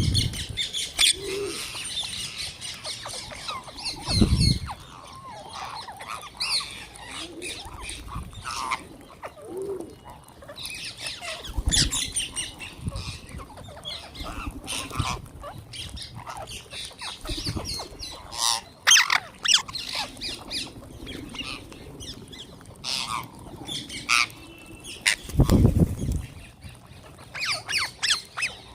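Flock of wild green parrots squawking, with many short, harsh calls overlapping. A few loud low thumps come about 4 seconds in, around 12 seconds, and near the end.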